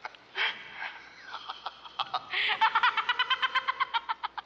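A boy's high-pitched giggling: a fast run of short laughs in the second half, after a breathy sound about half a second in.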